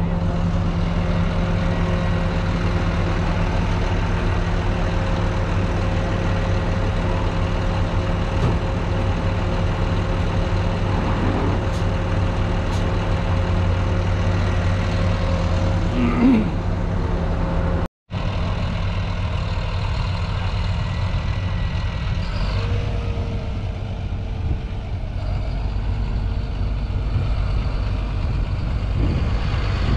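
Caterpillar D6 bulldozer's diesel engine running steadily at a low, even pitch, heard close up from on the machine. The sound drops out for an instant a little past halfway, then the engine continues.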